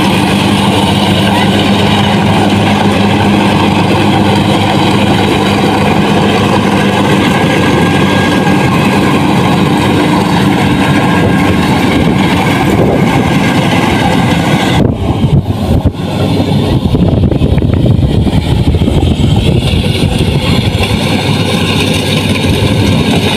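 Rice combine harvester engine running steadily under load. About fifteen seconds in there are a few short knocks or dropouts, and after them it runs a little louder and rougher.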